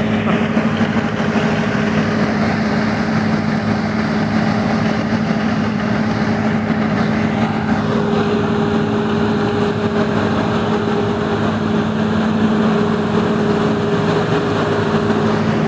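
Perkins 4006 diesel generator set running at steady speed: a constant, even engine drone with a steady hum, its balance shifting slightly about halfway through.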